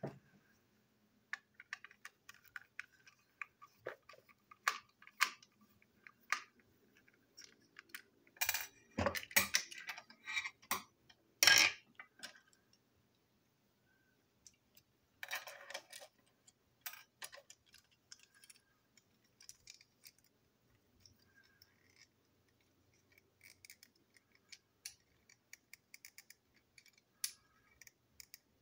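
Plastic toy train trucks being handled and taken apart: irregular clicks and small knocks of hard plastic parts, with a denser burst of clatter about a third of the way in.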